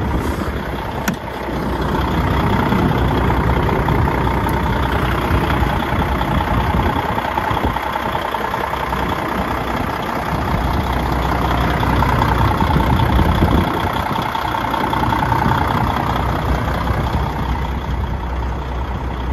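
DAF XF105 truck's 12.9-litre PACCAR MX straight-six diesel idling steadily.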